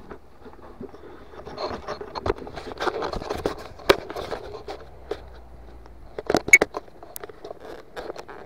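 Twigs, branches and leaf litter scraping, rustling and snapping as someone pushes through woodland undergrowth, with sharp cracks just before four seconds in and a quick cluster of louder snaps a couple of seconds later.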